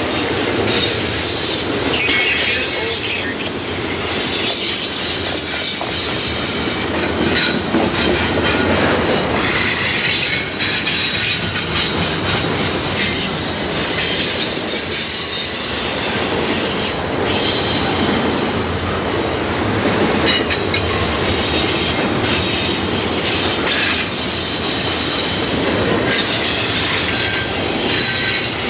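Railway cars rolling past close by, with steel wheels squealing against the rails in high, shifting tones over a continuous rumble and clatter.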